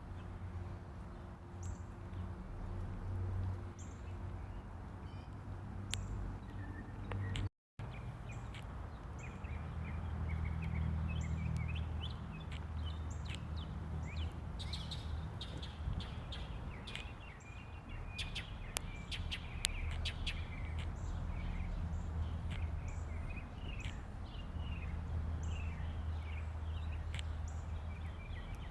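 Northern mockingbird singing a rapid jumble of short chirping notes, busiest in the middle, while a high short note repeats about every second and a half over a steady low rumble. The sound cuts out completely for a moment about seven seconds in.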